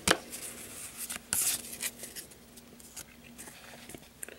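Pokémon trading cards being handled and slid against one another, with a few sharp clicks near the start and a short brushing rustle about a second and a half in, then fainter scraping.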